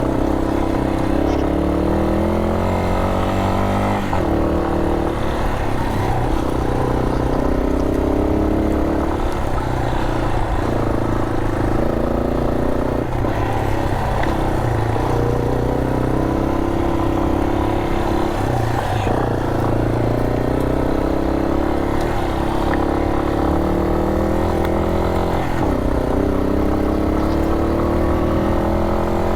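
Yamaha Serow 250's single-cylinder four-stroke engine pulling uphill on loose gravel. Its note climbs again and again, then drops sharply as the throttle is rolled off and opened once more.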